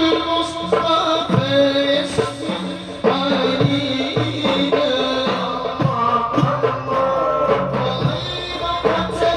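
Sholawat sung by voices to hand-drum accompaniment: a chanted devotional melody over steady, rhythmic drum strikes.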